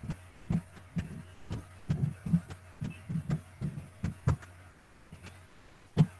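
Typing on a computer keyboard: irregular keystrokes several a second that stop about four and a half seconds in, then one louder key tap near the end.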